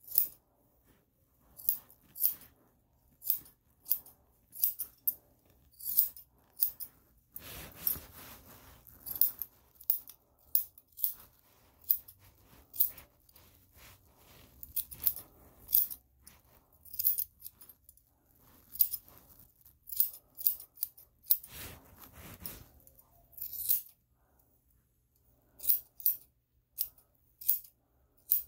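Grooming scissors snipping the fur around a Shih Tzu's paw: a long string of short, crisp metal snips at uneven intervals, with a couple of brief stretches of softer rustling.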